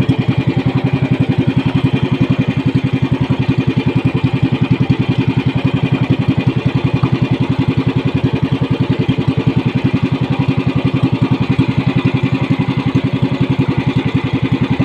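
A small outrigger fishing boat's engine running steadily while trolling, a fast, even chugging that holds the same pace throughout.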